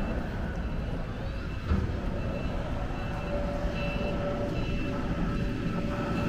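Vehicle traffic noise with a steady low rumble and hum, and short high electronic beeps on and off.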